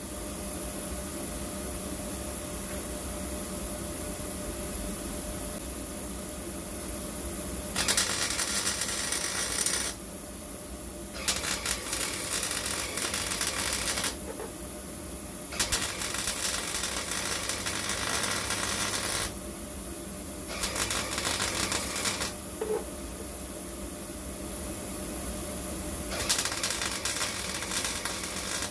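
Welder laying short runs of stitch welds on car body steel: five separate crackling bursts of a few seconds each, with pauses between them.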